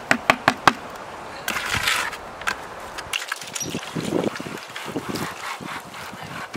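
A garden hose spray nozzle jetting water into a plastic bucket, splashing unevenly as the hardened residue is rinsed out. A few sharp knocks from the buckets being handled come right at the start.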